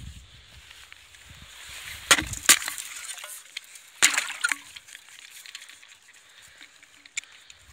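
Thin puddle ice cracking and breaking as a plastic bottle is pushed through it: two sharp cracks about two seconds in, then another about four seconds in with brief crackling after.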